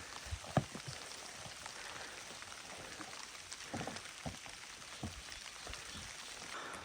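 Steady rain falling, an even patter with a few louder taps of drops or drips scattered through.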